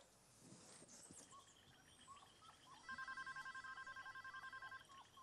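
An electronic telephone ringing: one ring with a fast warbling trill, starting about three seconds in and lasting about two seconds. Faint chirping runs underneath.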